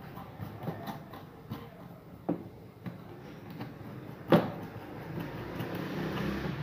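Scattered light clicks and knocks of hands working at the potentiometer knobs and nuts on a portable speaker's plastic control panel, with one sharper knock about four seconds in.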